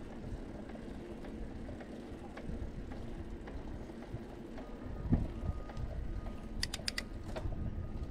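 Bicycle rolling along a concrete path: a steady low rumble with light rattling and clicking, a loud thump about five seconds in, and a quick run of four sharp clicks near seven seconds.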